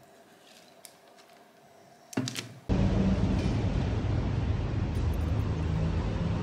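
Near-quiet room tone with a few faint ticks, then about two and a half seconds in a sudden switch to a loud, steady rush of outdoor noise.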